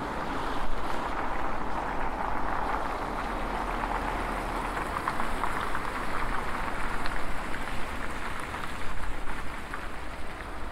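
Bicycle tyres rolling over a snowy street: a steady hiss with fine crackling that grows denser about halfway through, over a low rumble.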